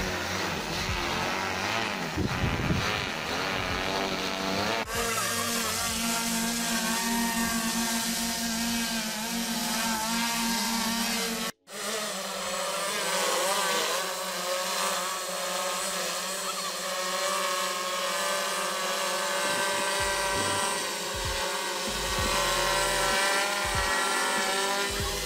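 Multirotor crop-spraying drone's electric rotors whirring in flight, the pitch wavering as the motors adjust. The sound cuts out for an instant about halfway through.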